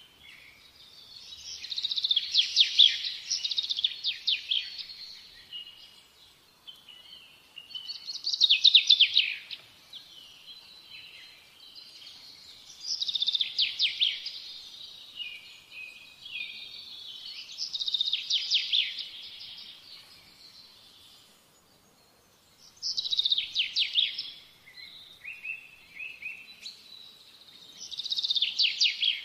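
A bird singing short phrases of rapid high notes every few seconds, with pauses between them.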